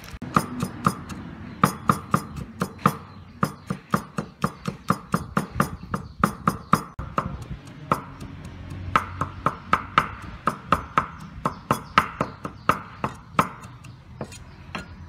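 Cleaver mincing garlic on a wooden chopping block: rapid sharp knocks of the blade on the wood, about four a second, with a couple of short pauses.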